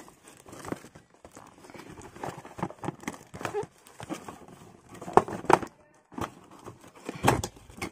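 Cardboard packaging box being picked up and handled, with irregular knocks, taps and light rustling. The loudest knocks come a little after five seconds in and again about seven seconds in.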